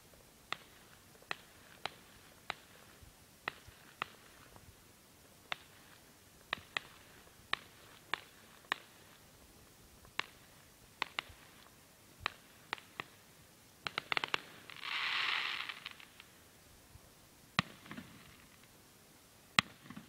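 Fireworks going off: a string of sharp, separate bangs at irregular intervals, about one a second, with a quick cluster of cracks and then a short hissing rush about fourteen to fifteen seconds in.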